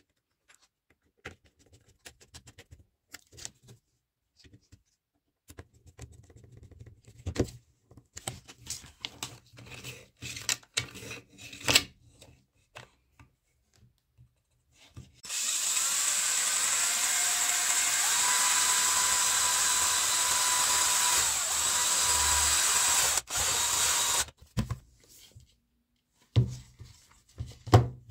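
Cordless rotary tool (mini drill) running steadily with a high whine for about nine seconds, drilling into a tape measure's plastic case, then cutting off suddenly. Before it, scattered clicks and taps of the plastic case being handled, and a few knocks near the end.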